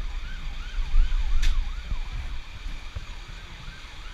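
An emergency vehicle's siren sounding in a fast yelp, its pitch sweeping up and down about three times a second, over a low rumble that swells about a second in. A short sharp click comes about a second and a half in.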